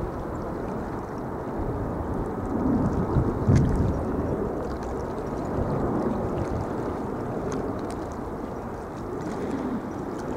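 Harbour water lapping and sloshing, mixed with wind buffeting the microphone, louder in gusts about three to four seconds in.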